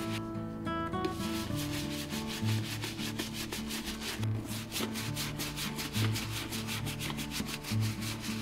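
Bristle brush scrubbing cleaning foam into a leather boot in rapid back-and-forth strokes, several a second; the scrubbing pauses briefly at the start and resumes about a second in. Background guitar music plays underneath.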